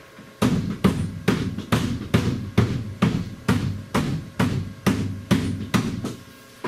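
About fifteen hollow blows, evenly spaced at roughly two a second, with a sharp knock at the end: a tool beaten against the Dodge Ram's fuel tank to jar a sticking fuel pump into running.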